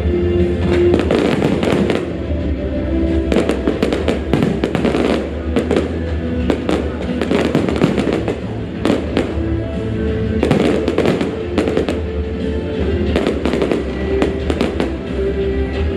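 Aerial fireworks bursting and crackling in quick succession over loud music.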